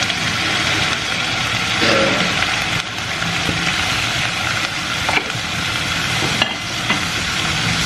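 Chopped onions and tomatoes sizzling steadily in a little oil in an enamelled cast-iron pot as they sauté, with a few faint clicks.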